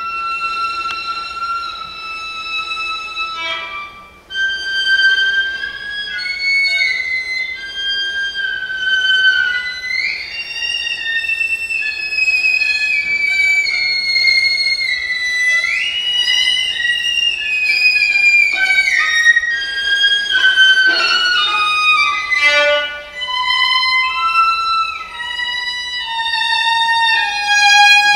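Unaccompanied solo viola playing a slow bowed melody in held notes. It slides up into a note twice, about ten and sixteen seconds in, then steps downward soon after, with a brief break in the sound about four seconds in.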